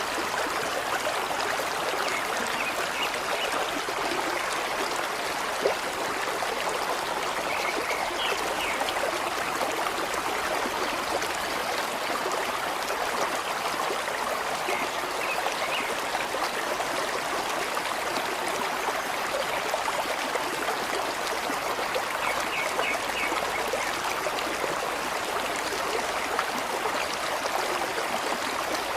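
Stream water flowing and trickling steadily, with a few faint, brief higher-pitched sounds now and then.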